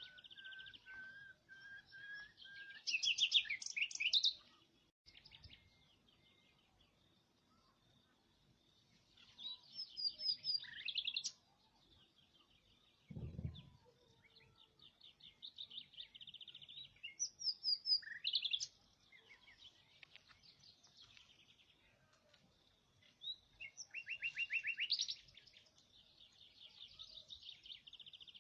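A small songbird singing in bursts of rapid trills and chirps every few seconds, with a single dull thump about halfway through.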